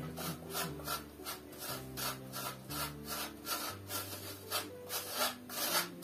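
Block of hard cheese grated on a metal box grater: rhythmic rasping strokes, about three a second.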